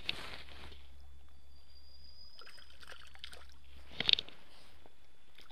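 Handling noise: a tight cluster of sharp knocks and rustles about four seconds in as the worn action camera is jostled, with a lighter knock at the very start, over a steady low hum.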